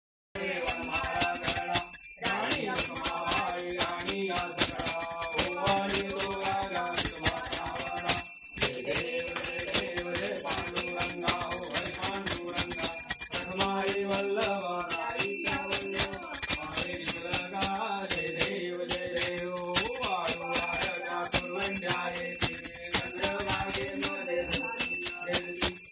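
A group of people singing a Ganesh aarti together while a small metal hand bell is rung rapidly and continuously.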